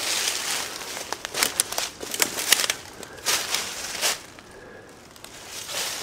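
Footsteps through dry fallen leaf litter: a few uneven steps, each a rustle with sharp crackles.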